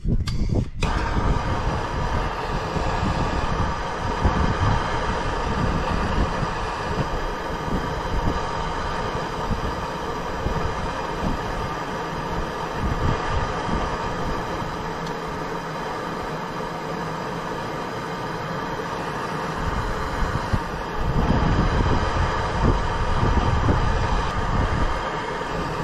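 Gas torch flame burning steadily, heating the steel keeper pin on an excavator track so that it can be bent over. The flame starts suddenly about a second in, with a rumble underneath that rises and falls.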